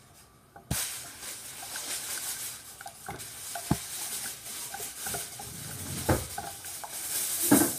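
Wooden spoon stirring thick baby cereal porridge in a saucepan on a gas cooker, scraping through it and knocking against the pan a few times, over a steady hiss.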